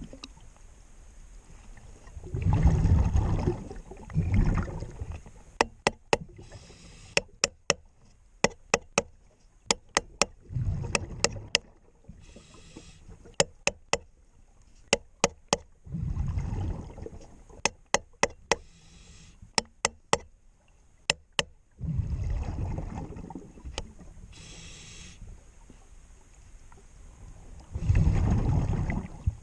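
Underwater diver breathing on a regulator: exhaled bubbles rush out every few seconds. Between breaths come a long run of sharp taps, struck on the blades of a stuck four-blade feathering propeller to work them round a little at a time.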